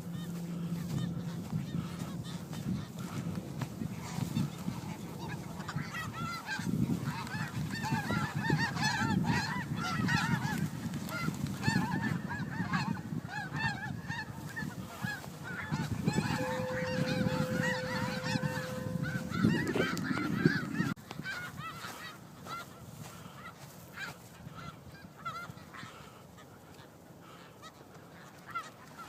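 A flock of snow geese honking, many short overlapping calls at once as the flock is flushed into flight. The calls are densest through the middle and thin out to scattered honks, more quietly, over the last several seconds.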